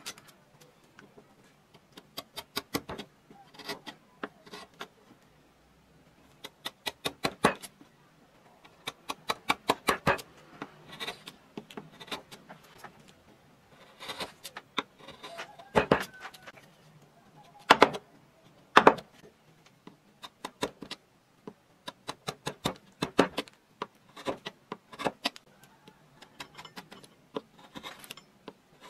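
A hand-pushed half-round carving gouge cutting into a wooden relief panel: bursts of short, crisp scraping strokes as small chips are shaved off, with a few louder single clicks.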